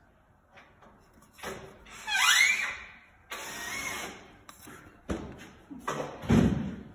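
Wooden corner joint being shifted across a hard tabletop. About two seconds in there is a short squeak that rises and then falls off, then a stretch of scraping, and near the end a few knocks of the wood against the surface.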